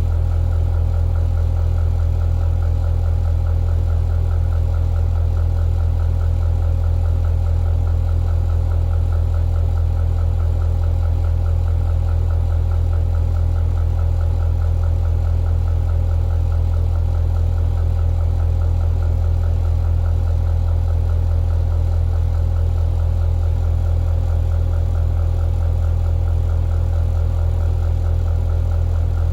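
Ventilation fan running with an abnormal noise: a loud, steady low hum with a fast, even rattle through it.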